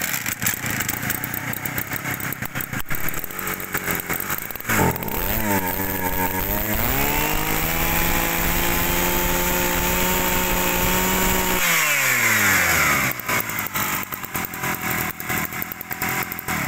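Kioritz two-stroke brush-cutter engine running just after being pull-started, idling unevenly at first. About five seconds in it is revved up, held at a steady high speed for several seconds, then throttled back down to idle.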